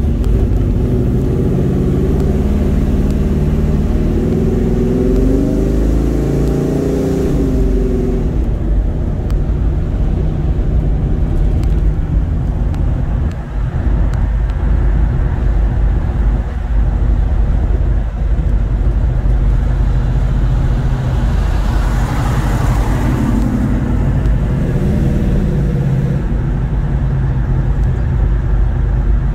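Car engine heard from inside the moving car, its revs climbing for the first several seconds as it accelerates, then a steady drone of engine, tyre and wind noise while cruising. A brief whoosh about 22 seconds in.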